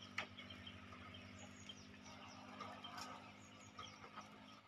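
Faint outdoor ambience: scattered high bird chirps over a steady low hum that stops near the end, with two soft knocks, one just after the start and one about three seconds in.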